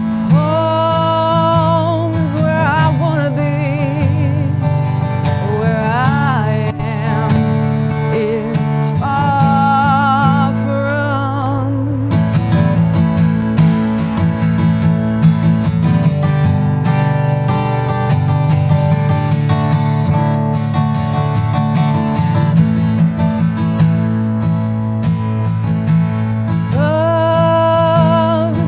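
A woman singing with vibrato over a strummed acoustic guitar. The voice drops out for a stretch in the middle while the guitar carries on, then comes back in near the end.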